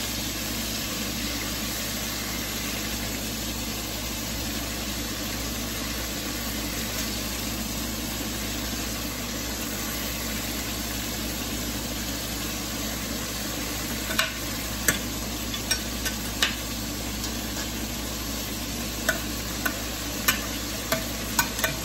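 Pork chop pieces frying in oil in a pan, a steady sizzle; from about two-thirds of the way in, a run of sharp clicks and pops.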